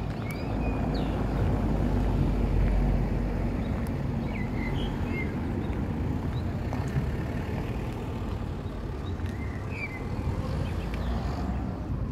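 Outdoor traffic rumble, as of a vehicle going by, loudest two to three seconds in, with a few faint high chirps over it.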